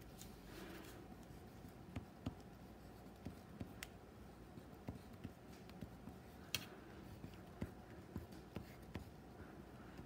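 Faint, irregular taps and clicks with light scratching: drawing materials being handled and used on paper. The sharpest clicks come about two seconds in and again about six and a half seconds in.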